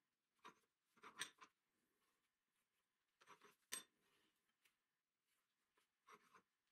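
Hand-lever ring bender rolling a steel strip around its die: faint metal scrapes and clicks as the lever is swung, in short groups about one second in, around three to four seconds with a sharp click near four seconds, and again near the end.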